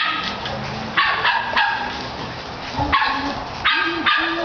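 Shetland Sheepdog giving a string of short, high-pitched barks, one at the start, a few about a second in, and a quick run of three or four near the end, as it works sheep.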